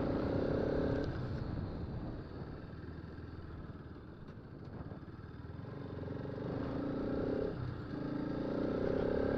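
Motorcycle engine running while riding, over a steady rumble of road and wind noise. The engine's note fades about a second in and comes back, rising, over the last few seconds.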